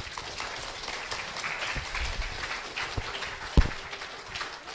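Audience applauding, with one thump about three and a half seconds in; the clapping thins out near the end.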